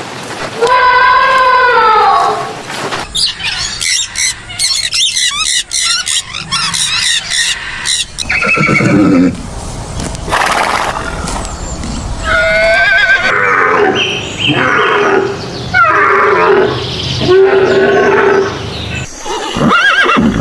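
Recordings of different animal calls edited back to back, changing every few seconds. Near the end come pitched, quavering calls that fall in pitch, typical of a horse whinnying.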